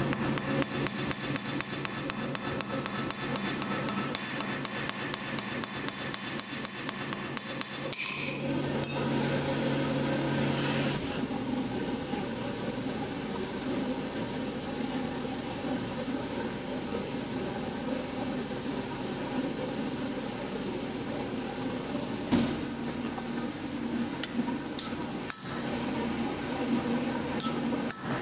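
A hand hammer striking a thin metal strip on an anvil in rapid, ringing blows for the first several seconds. After that come quieter scraping and working sounds, with a few single sharp knocks later on, one of them clearly louder.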